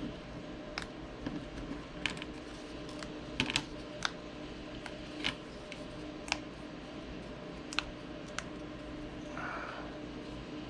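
Small kit pieces being popped out of their trays: about a dozen light clicks and snaps at irregular spacing, over a faint steady hum. A brief soft rustle comes near the end.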